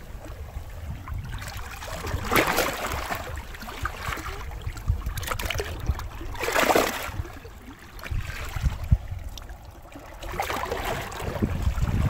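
Seawater washing in over shoreline rocks in three swelling surges, with wind rumbling on the microphone.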